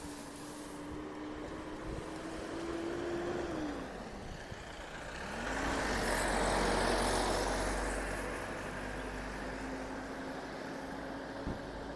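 Street traffic: vehicles driving past, one engine hum dropping in pitch about four seconds in, then a small white van passing close, which is the loudest moment at around six to seven seconds.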